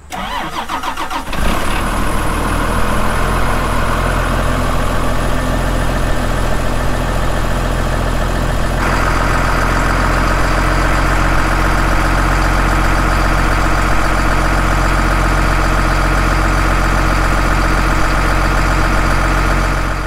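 A Case IH tractor's diesel engine is started: the starter cranks for about a second, then the engine catches and runs steadily. A higher whine joins about nine seconds in.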